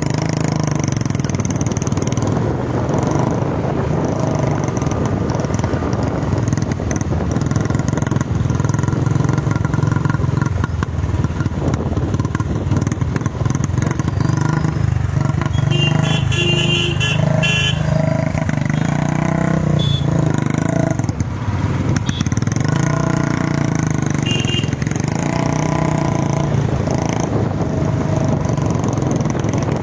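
Several motorcycles and scooters riding together, their small engines running steadily. A horn honks briefly about halfway through.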